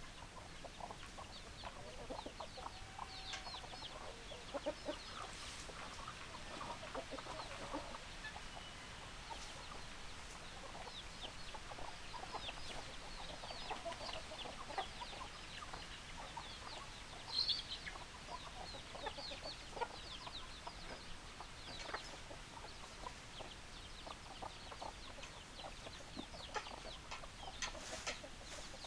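Chickens clucking, with many short high-pitched chirps running through it.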